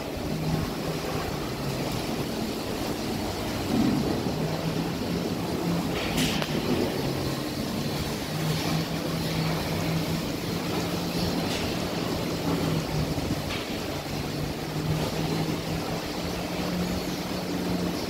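Machinery of a rotary milking parlour running: a steady mechanical hum with a low tone that fades in and out, and a few sharp clicks.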